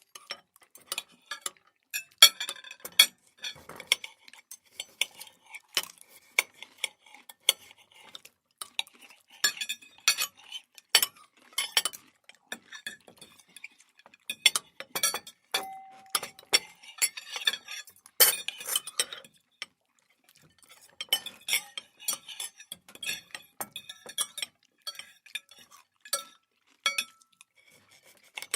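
Cutlery clinking and scraping on plates and dishes during a meal, in irregular short clicks and clinks, with now and then a brief ringing ping from a struck dish or glass.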